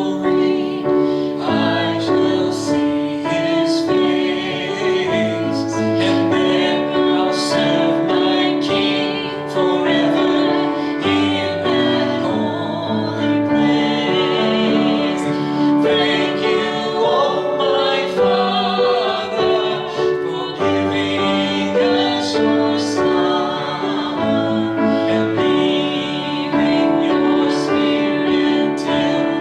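Music: a song with singing over piano accompaniment.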